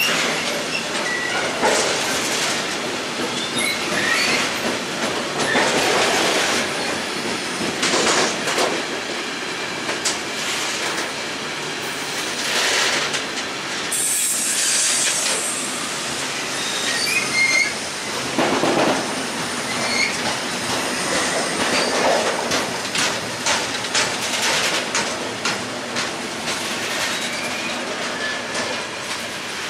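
Freight train of tank wagons rolling past close by: steady wheel rumble and clatter, with louder surges about every two seconds as wagon wheels pass and short wheel squeals. A brief high hiss comes about halfway through, and the noise fades a little near the end.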